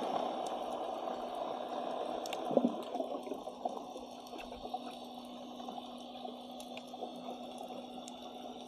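Underwater ambience heard through a submerged camera: a muffled watery wash with a steady low hum and scattered faint clicks, and one louder knock a few seconds in before it settles a little quieter.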